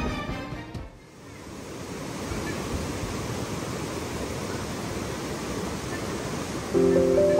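River water flowing: a steady rush that fades in after the music ends.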